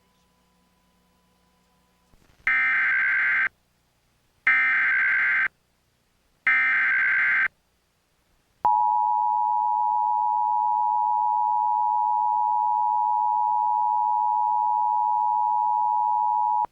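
Emergency Alert System SAME header: three one-second bursts of warbling data tones, a second apart, then the steady two-tone attention signal (853 and 960 Hz) for about eight seconds. Together they announce an emergency alert broadcast.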